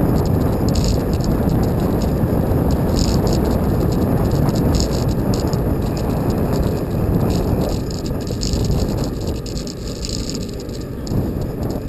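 Wind rushing over the microphone of a bicycle-mounted camera, with the bike and mount rattling over the road surface. The rush eases a little about eight seconds in.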